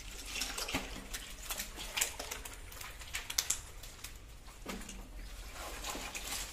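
Wet slapping, crackling and splashing from a netful of live fish, snakeheads, catfish and eels, wriggling and flapping in mud and water and being handled. It comes as a scatter of many short, sharp wet clicks and slaps, with a brief low call about five seconds in.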